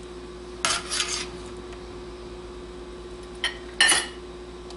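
Metal serving spoon scraping roasted vegetables and sausage off a metal sheet pan and clinking against a plate, in two bursts: about a second in and again near the end.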